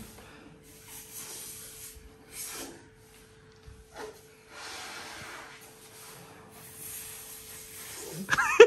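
A person blowing into a balloon to inflate it: a series of breathy puffs of air a second or two apart, over a faint steady hum. Voices and laughter break in near the end.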